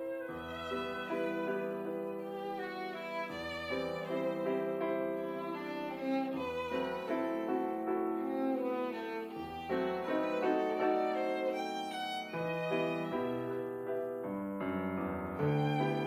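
Live chamber trio of violin, woodwind and piano playing, the violin prominent. A low bass note sounds about every three seconds under the melody.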